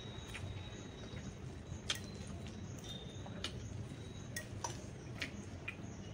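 Someone eating instant noodles: a scattered handful of small, sharp clicks and taps at irregular intervals, from utensils against the bowl and mouth sounds.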